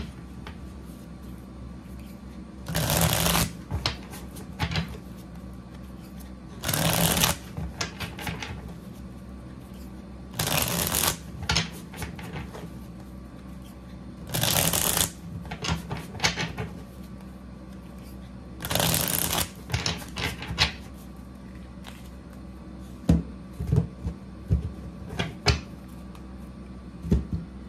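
A deck of tarot cards being shuffled by hand in five short bursts about every four seconds, followed by a run of light taps and clicks as the deck is handled.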